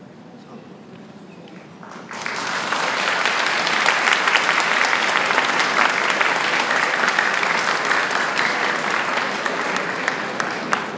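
Audience applauding in a large hall, breaking out suddenly about two seconds in and holding strong, easing slightly near the end.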